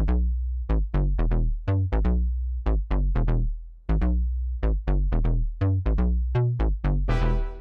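Electronic music: quick, sharply struck synth notes that fade fast, over a heavy, sustained bass, with a fuller, brighter layer coming in near the end.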